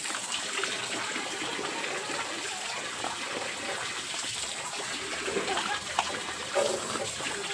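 Steady rush of running, splashing water, with a couple of short louder sounds near the end.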